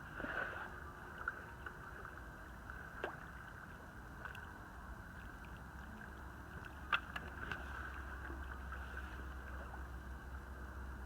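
Faint steady outdoor background noise with a low rumble that grows stronger about halfway through, broken by a few scattered sharp clicks, the loudest about seven seconds in.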